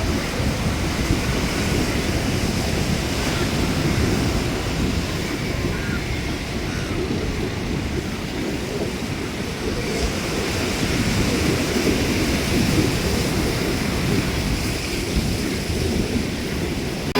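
Sea surf washing on the beach, with wind buffeting the microphone; a steady rough rush without distinct events.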